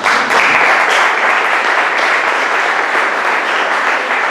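An audience and the panel at the head table applauding steadily at the end of a talk.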